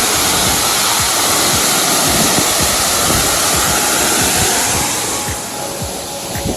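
Waterfall: water falling and crashing in a loud, steady rush that eases off a little about five seconds in.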